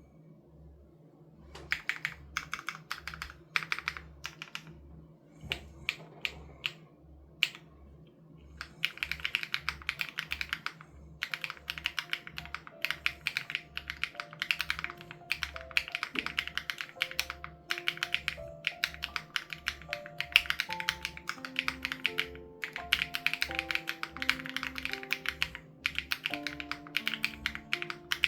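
Typing on an SPM AL87B mechanical keyboard with BSUN Raw switches and its sound-dampening foam removed. It starts as scattered keystrokes, then turns into continuous runs of fast typing from about nine seconds in. Quiet background music with a steady low beat plays underneath, with sustained melody notes coming in partway through.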